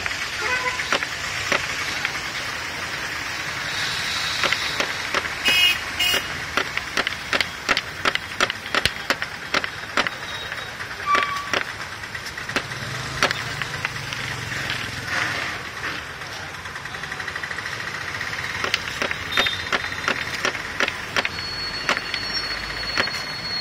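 Cleaver chopping sticks of jeedi sugar candy into pieces on a wooden table: a long run of sharp knocks, irregular and sometimes several a second, over steady background noise.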